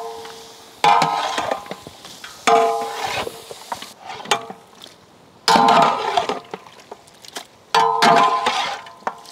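A metal ladle striking and scraping a cooking pot, ringing with the same clang about four times, while mutton fries in hot oil.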